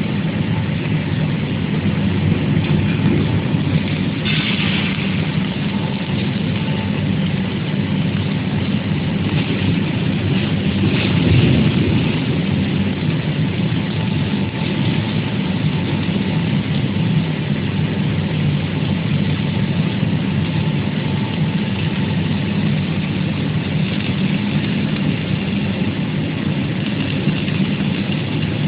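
Welding fume extractor's suction fan running steadily, a constant low hum with a faint whine above it.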